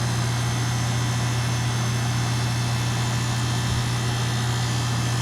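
Outdoor unit of a two-ton Goodman heat pump running steadily in cooling mode: a constant low compressor hum under the even rush of the condenser fan.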